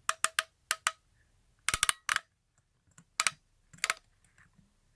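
Sharp plastic clicks and taps in short clusters, about a dozen in all, as the foldable smartphone kickstand is handled and its hinge is tilted.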